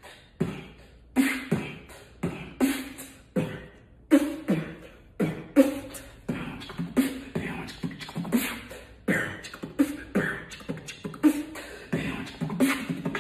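Human beatboxing: a steady rhythm of sharp mouth-made bass-drum and snare hits, about two to three a second, with hissing hi-hat sounds between them.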